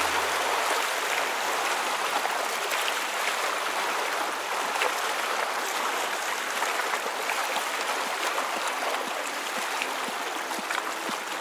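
Small waves washing onto a pebble beach: a steady rush of water over stones, with faint scattered clicks of the pebbles.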